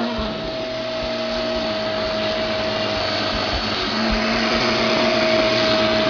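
Vacuum cleaner running steadily with a steady tone over the rush of air, its hose nozzle sucking on the string of a dog's rope toy. A fainter lower hum comes in about four seconds in.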